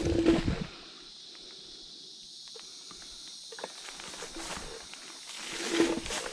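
Electric scooter on rough forest ground: a steady motor whine and rolling tyre noise drop away within the first second. Faint rustling and a few light clicks follow, then the whine and tyre noise build again about five and a half seconds in.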